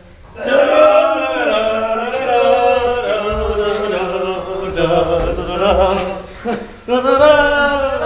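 Male voice singing or chanting long, drawn-out notes without clear words, with a short break about six and a half seconds in.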